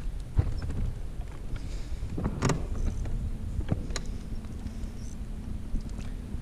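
Electric trolling motor on a boat humming steadily from about four seconds in, moving the boat into position. Before it comes low wind and handling rumble on the camera mic, with a few knocks, the loudest a sharp knock in the middle.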